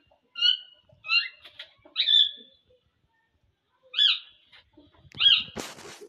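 Cockatiels giving short, repeated chirping calls about a second apart, some rising in pitch. Near the end there is a brief rustling burst.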